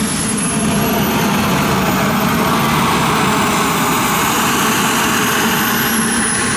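Turbine engine of a Carf F-100 Super Sabre radio-controlled model jet in flight: a steady rushing jet noise with a thin, high turbine whine that climbs in pitch and then falls away near the end as the jet passes.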